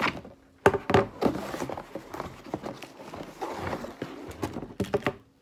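Sharp knocks and clatter of items being handled while a parcel is unpacked. The loudest knocks come close together about a second in.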